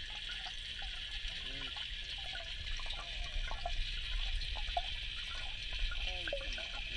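Underwater ambience from a camera submerged in a fish pond: a steady water hiss over a low rumble, with faint short chirp-like sounds scattered through it.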